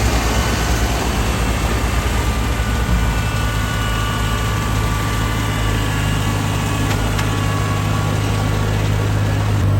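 Rice combine harvester's diesel engine running steadily with a low hum, faint higher whines over it, and a slight rise in level near the end.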